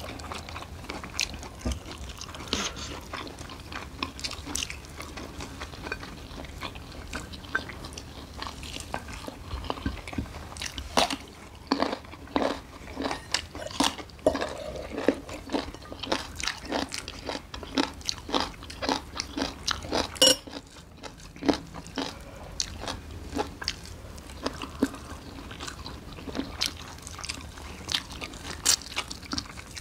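People eating and chewing food, with many short sharp clicking mouth sounds. The clicks come thickest in the middle, with one louder click about twenty seconds in.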